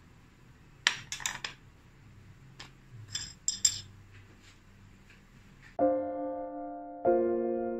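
A glass plate clinking several times against a tabletop as it is set down, in two small clusters of clinks. Near the end, slow piano chords begin.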